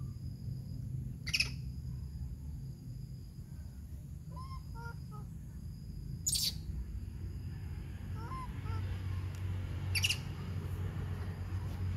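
Three short, shrill, high-pitched squeaks from a baby monkey, a few seconds apart, with faint small chirps between and a steady low rumble underneath.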